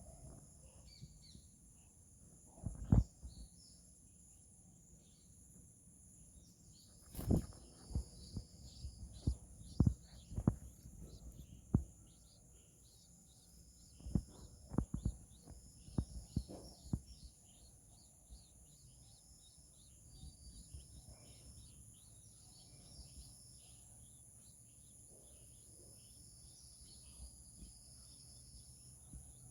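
Outdoor wildlife sound: birds calling in short, repeated high chirping phrases over a steady, high-pitched insect drone. Scattered low thumps come and go, most of them in the first seventeen seconds.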